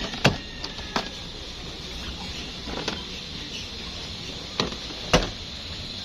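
Plastic door trim panel clips snapping into the door as the panel is pressed back on: a series of sharp, separate snaps, the loudest just after the start and about five seconds in.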